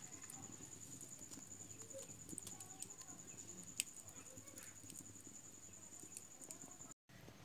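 Near silence: faint room tone with a steady high-pitched whine and a few faint ticks. The sound drops out completely for a moment near the end.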